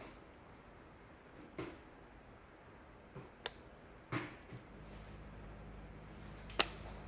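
Scattered light clicks and knocks from handling a phone and the parts of an LCD disassembly jig, one sharper click near the end. A faint low steady hum comes in about five seconds in.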